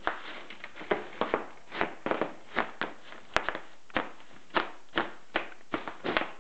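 Bubble wrap popping under stomping feet: a run of sharp, irregular pops, about two or three a second.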